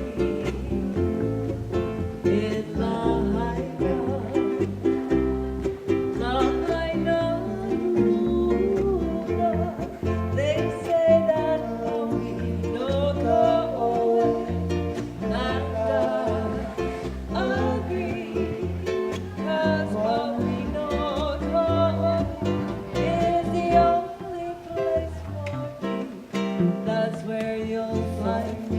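Hawaiian band playing a song, with plucked strings over a bass line and a singing voice carrying wavering held notes.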